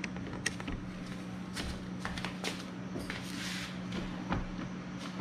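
Footsteps and light handling clicks and knocks around the jet ski, over a steady low hum, with a single louder knock near the end.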